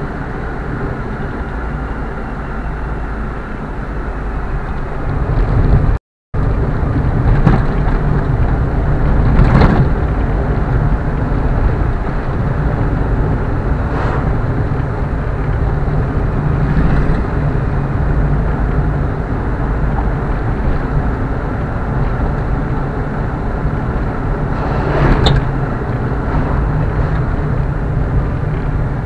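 Car driving at steady speed: continuous low engine and road noise, with a few short knocks from bumps in the road and a brief dropout of the sound about six seconds in.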